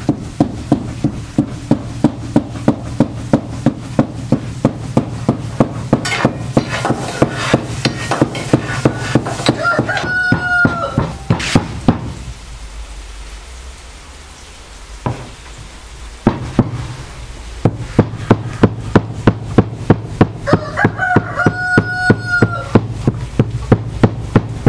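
Steel cleaver chopping meat into mince on a wooden board, about three strokes a second, stopping for a few seconds midway and then starting again. A rooster crows twice in the background.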